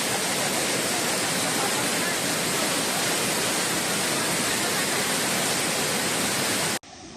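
Waterfall: water pouring down rock, a loud steady rush that cuts off suddenly near the end.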